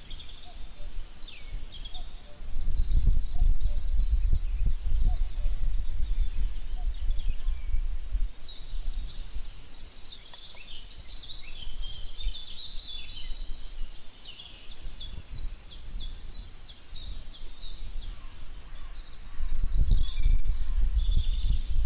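Birds chirping and trilling, with a run of quick repeated notes about three-quarters of the way through, over a low rumbling noise that swells up twice.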